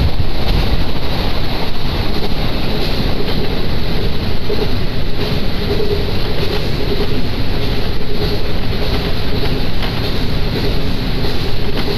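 Diesel railcar running at speed, heard from inside: a steady, loud rumble of wheels on the rails and engine, with a faint hum.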